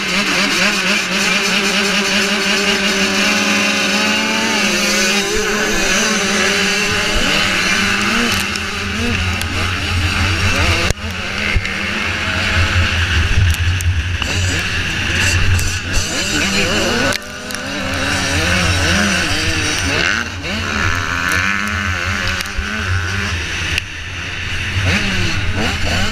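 Pack of 85cc two-stroke motocross bikes held at high revs on the starting line, then launching off the gate about four seconds in. After that the rider's own bike runs hard through the gears, its pitch rising and falling with throttle and shifts, with other bikes close by.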